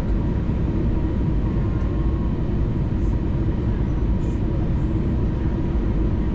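Steady cabin noise of an Airbus A320neo on approach: the rush of airflow and the hum of its Pratt & Whitney PW1100G geared turbofan engines, heard from a window seat beside the engine. A faint steady whine runs under it.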